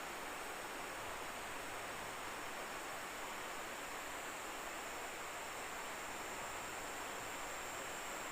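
Steady rush of flowing river water, swollen after heavy rain, with a thin, steady high-pitched drone of insects over it.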